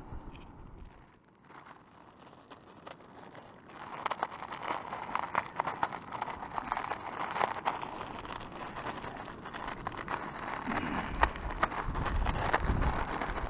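Plastic wrapper of an instant noodle package crinkling and rustling as it is handled, starting about four seconds in.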